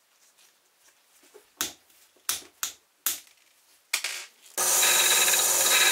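About half a dozen short rubbing strokes, like hand sanding or filing of a toy car part. About two-thirds of the way in, a loud, steady abrasive sound of a power tool starts and runs on.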